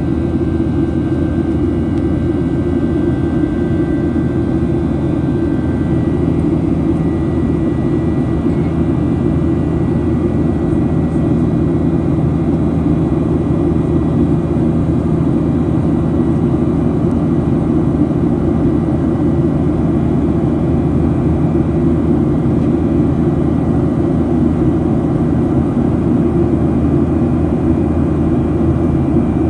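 Boeing 737-800's CFM56 jet engines and rushing air heard from inside the passenger cabin in flight: a steady, deep rumble that does not change, with a faint high whine during the first dozen seconds.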